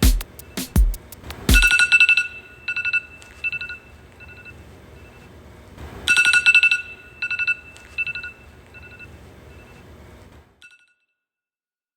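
Electronic alarm tone sounding: clusters of quick, high beeps on a steady pitch, with heavy beat-like thumps in the first couple of seconds. The beeps come and go in bursts and stop about ten and a half seconds in.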